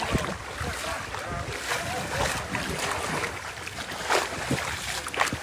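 River water splashing and sloshing, with wind on the microphone.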